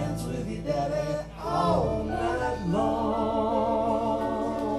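Live band performing with several voices singing in harmony, the notes held long with vibrato in the second half.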